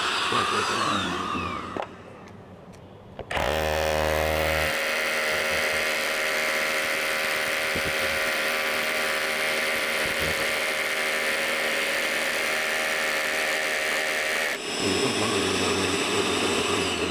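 Bosch GBH 185-LI cordless SDS-plus rotary hammer drilling into concrete with its GDE 12 dust extractor attached, motor running with a steady whine. It runs in bursts: it winds down in falling pitch about two seconds in, starts again sharply a second later and runs steadily for about eleven seconds, then runs again near the end.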